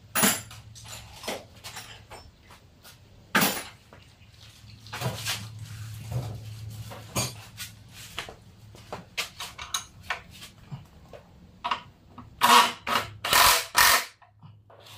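Irregular knocks and clanks of hand tools and metal parts while a motorcycle's front wheel and axle are refitted, with the loudest burst of clanks near the end, over a faint steady hum.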